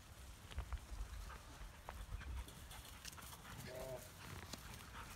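Australian Shepherd puppies scuffling and playing on dry straw and dirt: scattered rustling and scratching of paws. One short puppy cry is heard a little before four seconds in.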